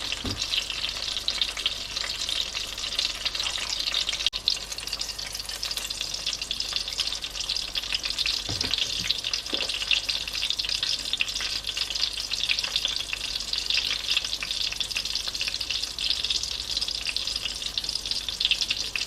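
Egg-dipped aubergine omelette (tortang talong) frying in oil in a pan over medium heat: a steady sizzle with fine crackling, and a couple of faint low thuds about halfway through.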